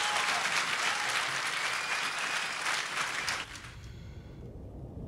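Audience applauding, cut off abruptly about three and a half seconds in, leaving a low rumble.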